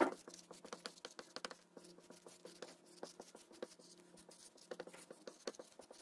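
Dry-erase marker writing on a small whiteboard: many quick, irregular strokes of the felt tip against the board, the sharpest at the very start, over a faint steady hum.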